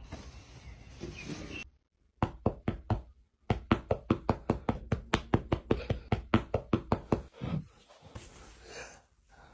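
A fast run of sharp knocks, about five a second, for roughly five seconds with a short break after the first second.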